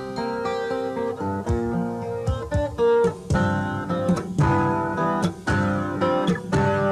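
Acoustic guitar music: plucked notes and strummed chords, each ringing on after it is struck.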